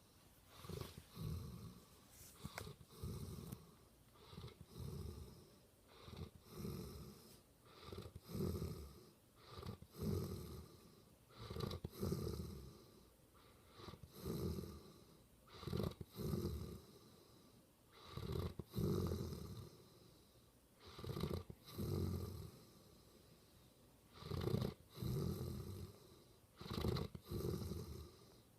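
Rhythmic snoring from a sleeper, one snore roughly every two seconds.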